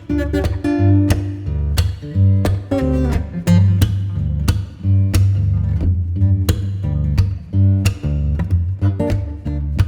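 Background music with plucked guitar and a steady bass line.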